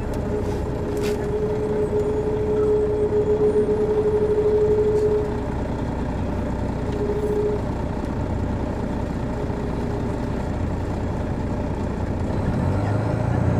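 Detroit Diesel Series 60 inline-six diesel of a 2002 MCI D4000 coach running steadily, heard on board with road noise. A steady whine sits over it for the first five seconds and comes back briefly about seven seconds in.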